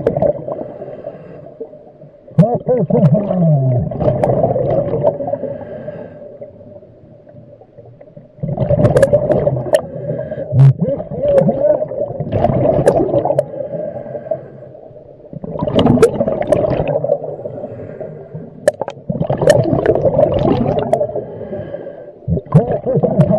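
Scuba diver's exhaled bubbles gurgling out of the regulator in long bursts every few seconds, with quieter gaps between breaths, heard underwater.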